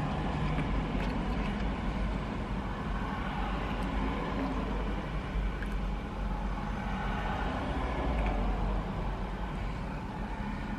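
Steady low hum of an idling vehicle engine, heard from inside a van's cab.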